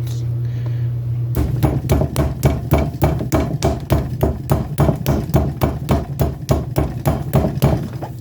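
Boneless chicken breast being pounded flat with a drinking glass used as a meat mallet, so it will cook evenly: a fast, even run of thuds, about three or four a second, starting about a second in.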